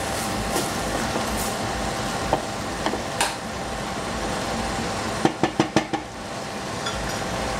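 Squash pieces frying in a stainless steel saucepan, stirred and tossed with a wooden spatula, with a steady sizzle underneath. Around five seconds in the spatula knocks on the pan about five times in quick succession.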